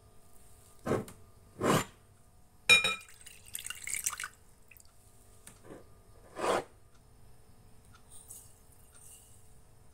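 Milk poured from a glass bottle into a glass bowl: a few short splashes, a ringing glass clink, and the stream of milk. Near the end, a faint hiss of granulated sugar tipped into the bowl.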